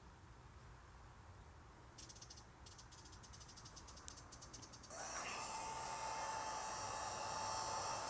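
Rapid faint ticking for a few seconds, then a heat gun switches on about five seconds in and runs with a steady hiss and a steady whine, drying a layer of paint on the console.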